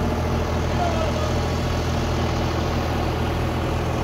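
Engine-driven Atlas Copco Varisco dewatering pump running steadily at a constant low hum, drawing groundwater out of the pit through its suction hose.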